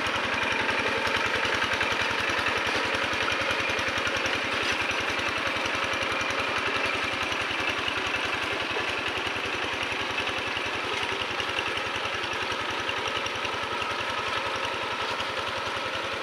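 Single-cylinder diesel engine of a Quick G1000 two-wheel hand tractor chugging steadily under load as it levels a flooded rice paddy. It fades slightly as the tractor moves away.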